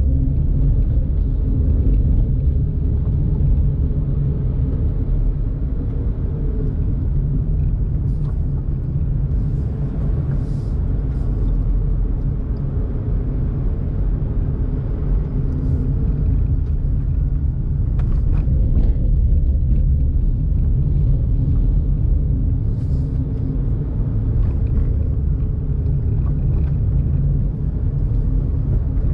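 Daihatsu Tocot kei car on the move: steady low rumble of road and tyre noise with its small three-cylinder engine humming underneath, the engine note drifting gently up and down with speed. A few faint ticks and clicks come through now and then.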